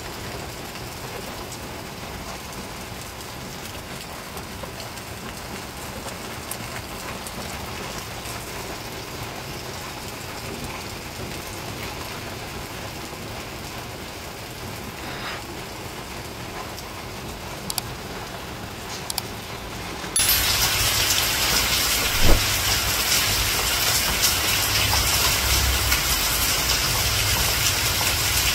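Steady rain falling. About twenty seconds in the sound jumps suddenly to a much louder, brighter rush of rain, with one sharp knock a couple of seconds later.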